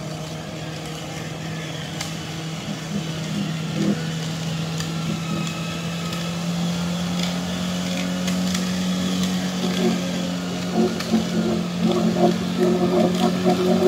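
Suzuki Jimny engine running steadily under load as the 4x4 wades through deep muddy water, its note edging up about halfway through. Crowd voices and shouts come in over it near the end.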